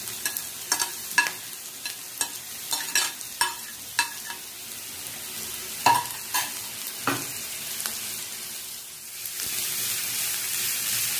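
Chopped vegetables sizzling in hot oil in a frying pan, with a steel spoon clinking against the plate and pan edge as more vegetables are scraped in. The clinks come irregularly over the first seven seconds, and the sizzle grows louder about nine seconds in.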